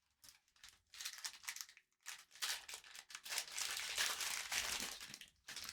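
Foil trading-card pack wrapper being torn open and crinkled by hand, a run of crinkling that grows heaviest in the second half.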